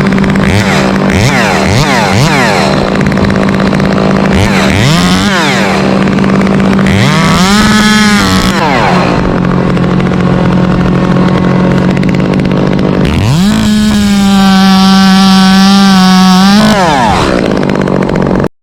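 Stihl MS 462 two-stroke chainsaw revving up and down in quick blips, then held at full throttle for about three seconds before dropping back. A second engine runs steadily underneath.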